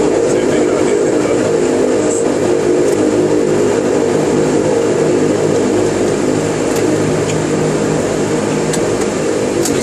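Steady drone of a Dash 8-200's Pratt & Whitney Canada PW123 turboprop engines and propellers at low taxi power, heard from inside the cockpit as the aircraft is marshalled to a stop. A few faint clicks near the end.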